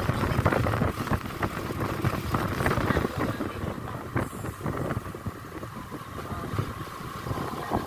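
A moving road vehicle: steady engine and road noise, rough and uneven at the low end.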